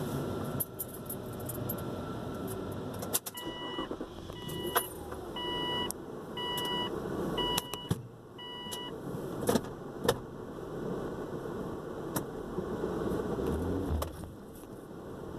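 Inside a car, a warning chime beeps about six times, roughly once a second, over a low steady rumble from the car. Sharp clicks and a jangle of keys are scattered through it.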